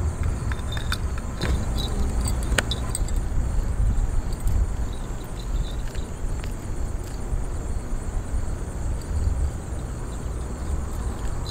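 Steady low rumble of wind buffeting the microphone, with several light clicks and knocks in the first three seconds as fishing gear is handled at the bucket.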